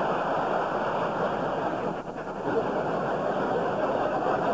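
A large theatre audience laughing and applauding after a punchline, a steady roar of many voices and clapping that dips briefly about two seconds in.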